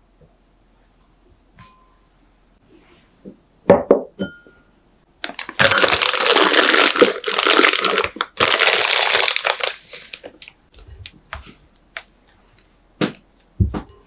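A clear plastic piping bag crinkling loudly in two long stretches as it is opened out and fitted over the rim of a drinking glass. It is preceded by a couple of sharp knocks of glassware being set down, and a dull thump comes near the end.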